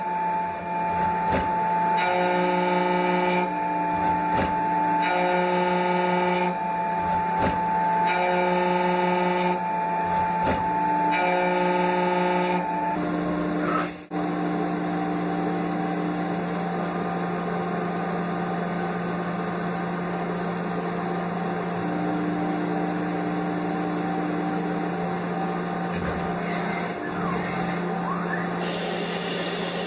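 Mazak Integrex CNC mill-turn machine cutting metal. For the first half its milling spindle cuts gear teeth, the tones rising and falling in a regular cycle of about one and a half seconds as the cutter passes through each tooth. After a sudden break about halfway, it gives a steadier hum as a drill bores into the workpiece.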